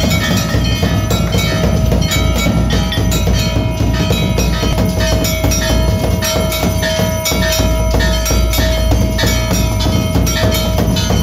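Temple aarti din: metal bells ringing and clanging without pause together with rapid drum and percussion strokes.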